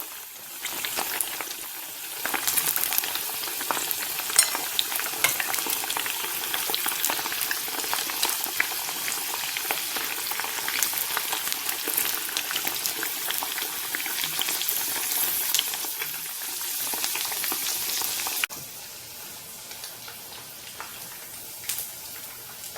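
Thin slices of sun-dried, still-uncooked beef jerky deep-frying in hot oil, sizzling steadily with dense crackling. About eighteen seconds in the level drops suddenly to a quieter sizzle.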